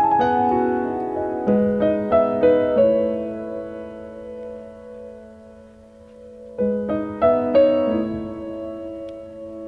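Background piano music: a short phrase of notes over the first three seconds, left to ring and fade, then a new phrase begins about two-thirds of the way through.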